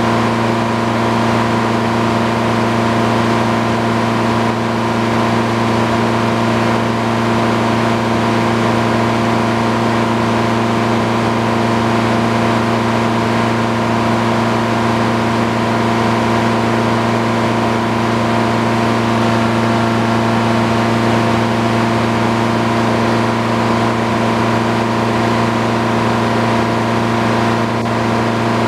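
The engine powering a belt-driven circular sawmill runs at a steady speed, with the large saw blade spinning free and not cutting: an even mechanical hum that holds the same pitch throughout.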